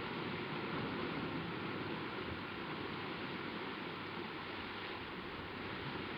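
Choppy sea water sloshing, heard as a steady rushing noise that keeps on without a break.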